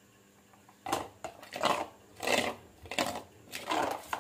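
A spoon stirring thick gram-flour and flour batter in a hammered steel bowl, making wet swishing strokes against the metal, about six of them after a near-silent first second.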